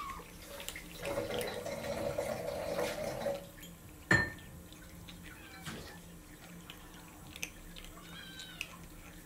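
Kittens eating dry kibble from ceramic bowls, chewing and crunching, loudest in the first few seconds. There is a sharp clink about four seconds in and a short, faint mew near the end.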